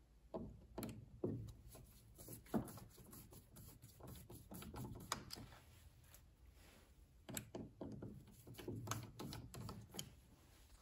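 Light, irregular clicks and taps of a screwdriver in the slot of a brass screw and its cup washer, the screw turning in stripped wood threads that no longer let it tighten. The clicks bunch in the first few seconds and again near the end, with a quieter stretch between.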